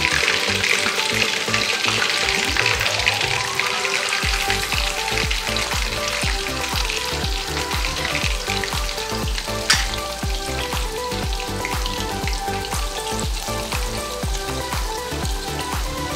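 Hot oil sizzling and bubbling in a kadai as batter-coated chicken lollipops are lowered in and deep-fried. There is one sharp click about ten seconds in.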